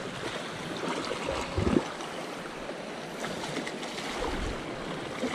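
Small sea waves washing and splashing against shoreline rocks, with a brief low bump about a second and a half in.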